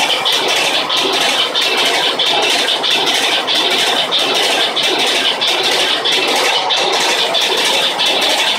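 Loud, steady din of a ship's engine room, with diesel engines running and a fast, even clatter running through it.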